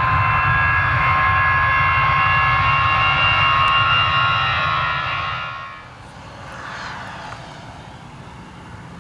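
Jet engine whine: several steady high tones over a deep rumble, held and then fading out a little over five seconds in. After it comes a much quieter, steady distant jet noise.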